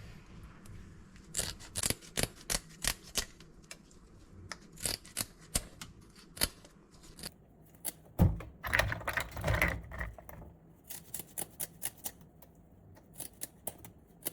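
Spiny fins being cut off a fish being cleaned: a run of short, sharp, irregular snips and clicks, with a heavier knock about eight seconds in.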